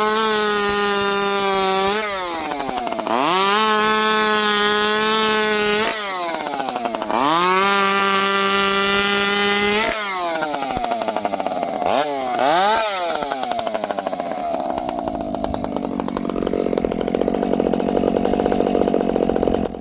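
Dolmar chainsaw free-revved to full throttle three times, each held about two seconds, then blipped twice and let fall back to an unsteady, warbling idle. Warbling down to idle like this is usually a lean low-speed jet.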